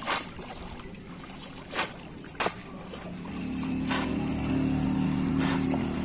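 Bamboo polo fish trap being plunged into shallow water, splashing five times at irregular intervals. From about halfway a steady low motor hum joins in underneath.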